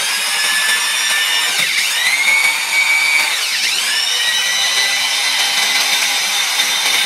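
Power drill running a hole-saw core bit into a glazed ceramic canister lid, a steady high whine with grinding from the bit on the ceramic. The pitch dips and climbs back twice, a little under two seconds in and again at about three and a half seconds, as the bit loads up on the ceramic.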